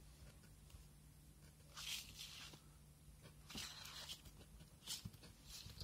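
Craft knife blade cutting through drawing paper in a few faint, short scratchy strokes.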